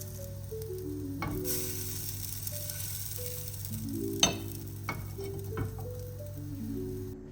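Apple fritters sizzling as they fry in oil in a pan, with about four sharp taps of a utensil, the loudest about four seconds in; the sizzle cuts off near the end. Soft background music with plucked notes plays throughout.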